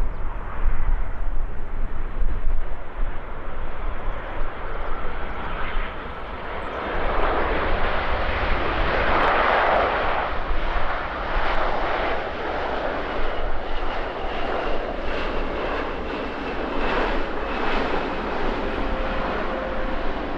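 Boeing 787-9 airliner's jet engines during the landing arrival, a broad rushing noise that swells to its loudest about halfway through and then holds on with a faint high whine. Gusty wind rumbles on the microphone, strongest in the first few seconds.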